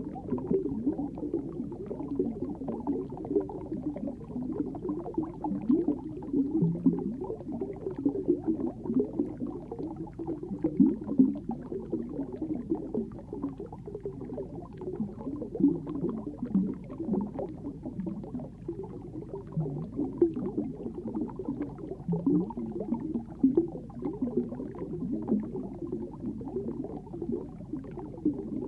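Muffled underwater sound picked up by a submerged camera: a continuous low burbling and gurgling of moving water with irregular swells, dull and with little treble.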